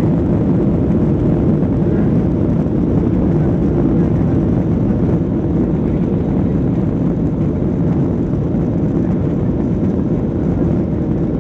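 Airliner's jet engines heard as a steady, even low rumble, with no rise or fall in level.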